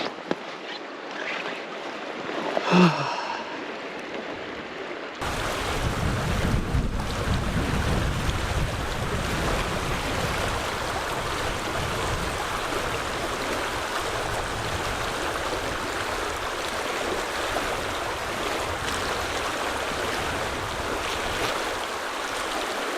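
River water rushing, with wind rumbling on the microphone. A short pitched sound stands out about three seconds in. About five seconds in the sound cuts abruptly to a louder, closer take of the rushing water and wind buffeting.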